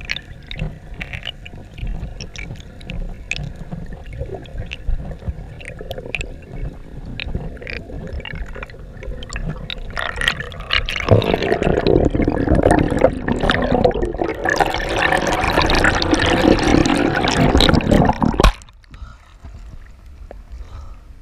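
Water noise through a camera housing underwater: a low rumble with scattered sharp clicks, then, about halfway through, loud water rushing and bubbling against the housing. It cuts off abruptly as the camera breaks the surface, leaving a quieter, muffled wash of sea water.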